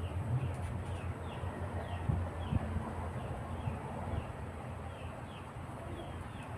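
A small bird chirping over and over, short falling chirps several times a second, over a steady low background rumble.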